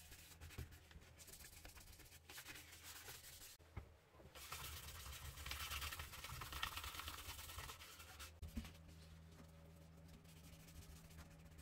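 Abrasive paper rubbed by hand over a painted part of an old Salter spring scale: faint repeated sanding strokes, briefly pausing and then louder, stopping about eight seconds in, after which only a faint low hum remains.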